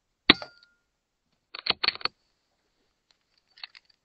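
A single shot from an Airmaks Krait L .22 PCP air rifle about a third of a second in, with a brief ringing after it. About a second later comes a quick cluster of sharp clicks and rattles, then a few faint ticks near the end.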